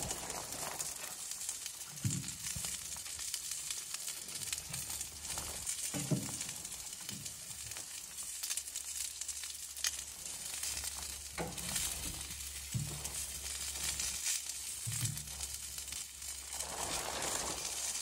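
Meat sizzling in a wire grill basket on top of a small wood-burning tent stove: a steady hiss, with a few soft thumps.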